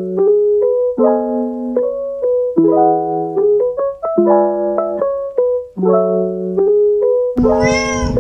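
Background piano music: a keyboard tune of repeated chords under a melody. Near the end, a brief sound that rises and then falls in pitch cuts across it.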